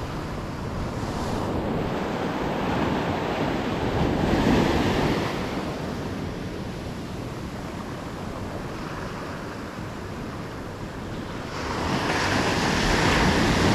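Ocean surf breaking and washing up a sandy beach, with wind on the microphone. A wave swells about four and a half seconds in, and the surf grows louder again near the end.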